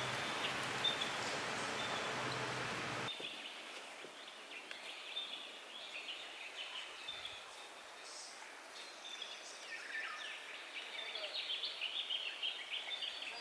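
A steady rushing noise with a low hum cuts off about three seconds in. Quieter outdoor ambience follows, with many short bird chirps and calls that grow busier toward the end.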